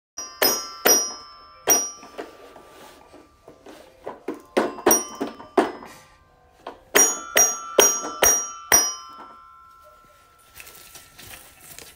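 Child's toy xylophone with metal bars being struck unevenly by hand, about a dozen ringing notes in three bursts. The last burst is a quick run of five strikes, and one note keeps ringing for a few seconds after it.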